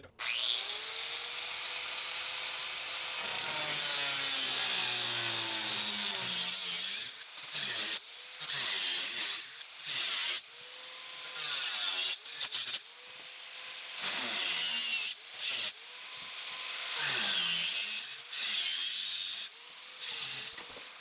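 Handheld power cutting tool spinning up and cutting sheet steel, its motor rising in pitch at the start, running steadily, then winding down, followed by many short bursts as the trigger is pulsed on and off. This is rusted body metal or patch stock being cut out.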